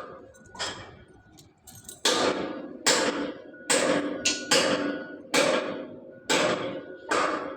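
A hammer striking welded steel about nine times, each blow ringing on. Two lighter taps come first, then heavier blows follow at just under one a second.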